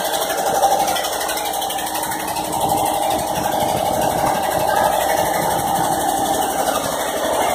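Boat engine running steadily, a fast, even pulsing hum with a slight rattle.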